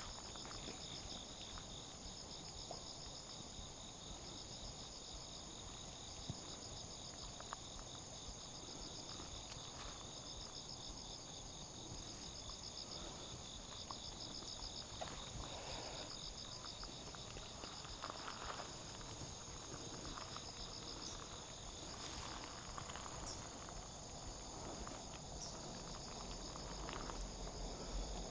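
Insects, crickets or similar, chirping in steady, rapidly pulsing trills, with a higher continuous buzz above them. Faint scattered scuffs of footsteps.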